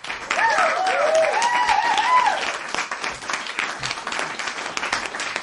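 A crowd applauding, a dense patter of clapping, with a few voices calling out in the first couple of seconds.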